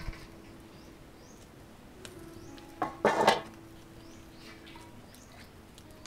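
Metal pot lid clattering against a wok as it is lifted off, a sharp knock and then a brief rattle about three seconds in.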